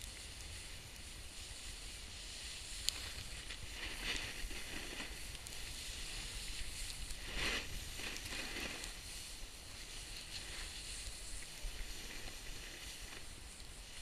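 Snowboard sliding on packed snow: a steady scraping hiss from the board's edges that swells several times as it turns, over a low wind rumble on the microphone, with one sharp click near 3 seconds.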